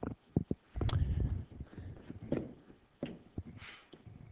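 A few scattered light clicks and knocks, with a brief low rumble about a second in.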